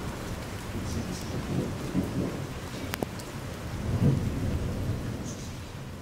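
Steady rain with a low rumble of thunder rolling under it, swelling strongest about four seconds in. A single sharp click about three seconds in; the sound fades down near the end.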